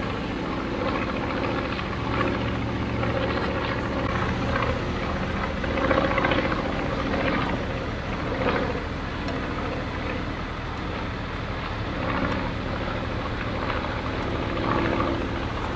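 Vintage biplane's piston engine and propeller running steadily as it flies past overhead, with a few brief swells in level.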